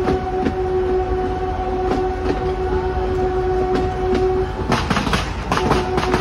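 Narrow-gauge train's horn held in one long steady note while the wheels click over the rail joints. About four and a half seconds in the horn breaks off and a rapid crackle of firecrackers starts.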